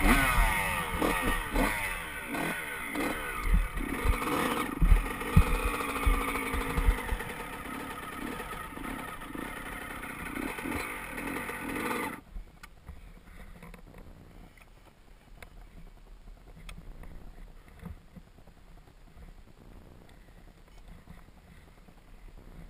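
Honda CR125 two-stroke single-cylinder dirt bike engine running and revving up and down on the trail, then cutting out suddenly about twelve seconds in. Afterwards there are only faint scattered clicks and rustling as the bike sits stopped, with its sprocket come off.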